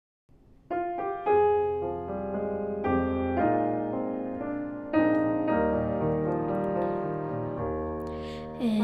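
Piano playing a slow hymn introduction, chords struck one after another, starting about a second in after a brief silence. A singer's voice comes in at the very end.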